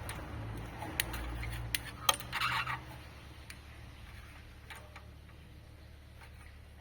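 Small metal parts and a measuring tool being handled: a few sharp clicks and taps in the first three seconds, with a short scraping noise between them, over a low steady hum. It then goes quieter, with a few faint ticks.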